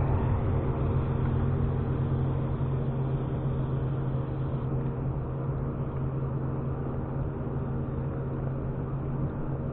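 Boat motor running steadily at low speed, a constant low hum that fades slightly over the stretch.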